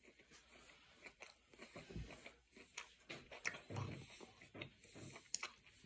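Faint close-up chewing of a mouthful of steak wrap, with scattered soft mouth clicks and smacks.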